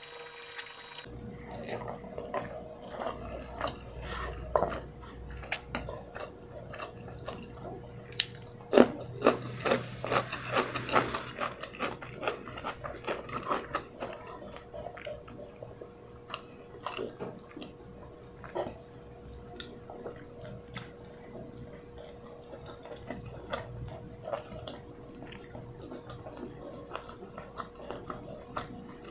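Close-miked eating sounds: chewing of rice and fried chicken, with fingers tearing the smashed fried chicken and picking at rice on a wooden board, a steady run of small wet clicks and smacks, busiest about eight to twelve seconds in. A faint steady hum sits underneath.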